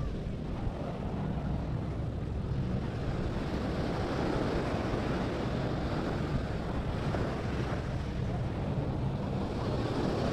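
Small waves breaking and washing up on a sandy shore, with wind buffeting the microphone in a steady low rumble.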